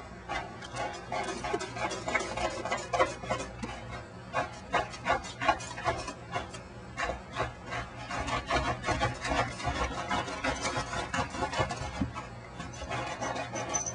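A cat moving about inside a plastic pet carrier: irregular rapid clicks and scratches, several a second, throughout.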